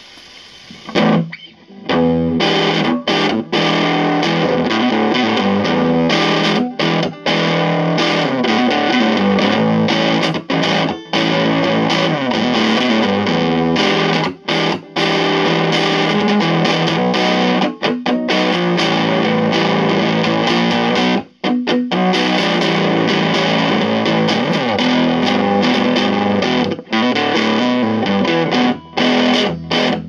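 Electric guitar played through a Fuzz Face–style fuzz pedal into a Marshall combo amp, with a distorted, fuzzy tone. The playing starts about two seconds in and carries on with only brief pauses.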